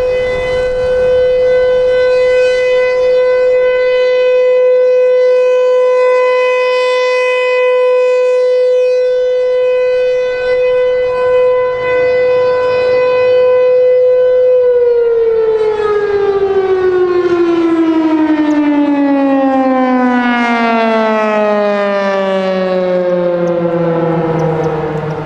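Federal Signal Thunderbolt 1000 civil defense siren sounding a steady single tone, the Alert signal. About fifteen seconds in it shuts off and winds down, its pitch falling steadily.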